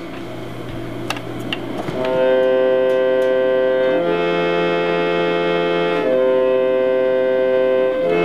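A keyboard instrument playing held chords that do not fade, with a reedy, organ-like tone. After a softer low note at the start, the chords come in about two seconds in and change every two seconds.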